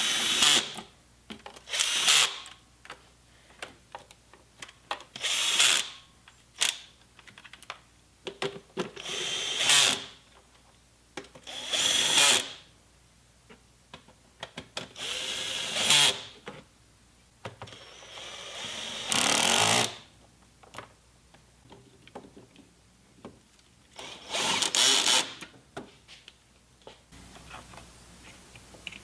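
Cordless power drill/driver run in short bursts of up to a second or so, every couple of seconds, as fasteners are driven.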